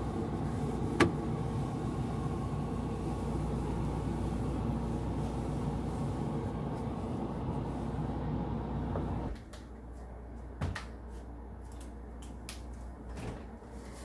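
Cleaning inside a refrigerator: a cloth rubs steadily over the plastic interior, with one sharp plastic click about a second in. After a sudden drop in level, a few light plastic clicks and knocks follow as the refrigerator's parts are handled.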